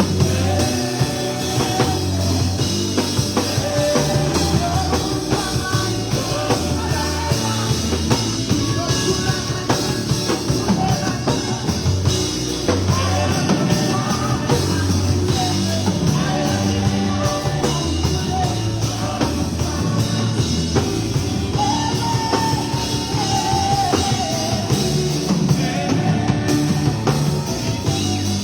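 A band playing a rock-style song, with singing over drum kit and bass at a steady beat.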